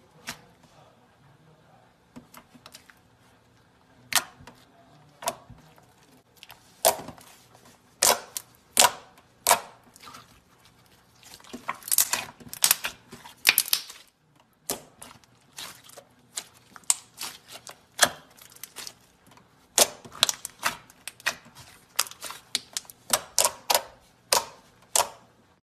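Soft slime squeezed, poked and folded by hand, with trapped air popping out in sharp, irregular clicks that come in quick flurries at times.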